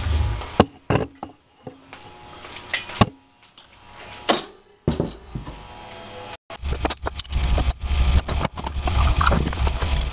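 Clinks, knocks and rattles of metal being handled: a gas torch and its hose picked up and moved about on a metal-topped workbench. After a brief break about six seconds in, a steady low rumble runs under further clicks.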